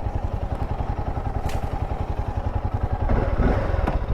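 Royal Enfield Himalayan 450's single-cylinder engine running under way, its exhaust beating in rapid, even pulses, a little louder near the end.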